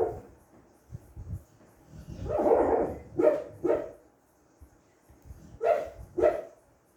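American Bully barking in her sleep: a longer drawn-out call about two seconds in, two short barks right after it, then two more short barks near the end.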